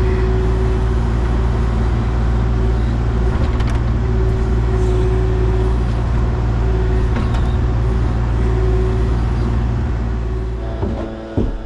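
Engine of heavy excavating equipment running steadily, a loud low hum with a held tone over it, which falls away about ten and a half seconds in.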